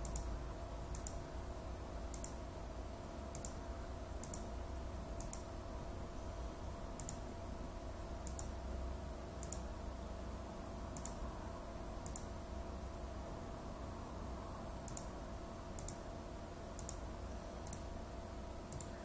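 Computer mouse buttons clicking at about one click a second, with a short pause near three-quarters of the way through, as points are placed one by one along a curve. A steady low electrical hum runs underneath.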